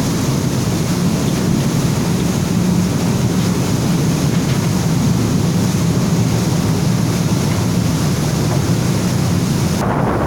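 Steady drone of a fast passenger ferry under way: a low engine hum under the rush of water and wind. Near the end the high hiss drops away suddenly while the low hum carries on.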